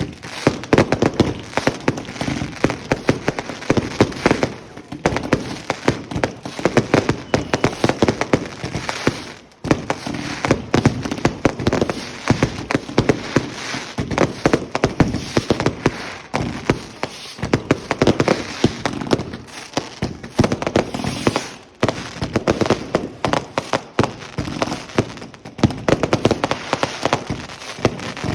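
Fireworks and firecrackers going off in a dense, continuous barrage: many sharp pops and bangs a second, with two brief lulls.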